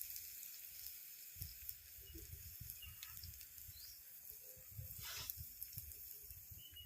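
Faint sizzling of onions and spices frying in a clay pot over a wood fire, under an uneven low rumble, with a brief sharper noise about five seconds in.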